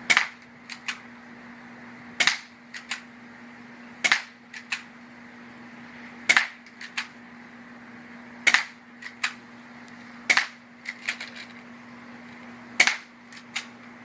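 Spring-powered airsoft pistol (Double Eagle) fired single shots, seven sharp pops about two seconds apart. Each shot is followed within a second by two or three fainter ticks.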